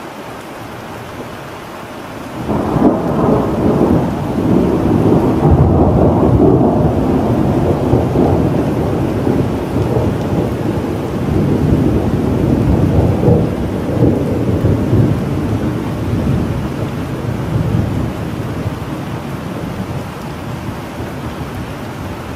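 Thunder rolling over steady rain. About two and a half seconds in, a sudden crack opens into a long low rumble that holds for about ten seconds, then slowly dies away while the rain hiss carries on.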